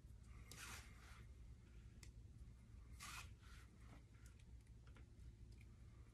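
Near silence with faint handling sounds: a nylon string being pulled through lacrosse mesh, giving two soft swishes, about a second in and about three seconds in, and a few light ticks.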